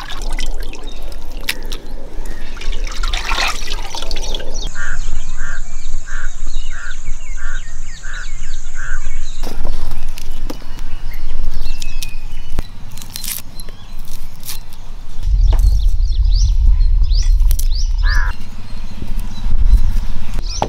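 Water splashing and trickling as raw chicken pieces are washed in a pot. Then outdoor rural ambience: a bird calling in a run of about seven evenly spaced short notes over a steady high insect buzz. Later come light clicks of a small knife trimming shallots and a stretch of low wind rumble on the microphone.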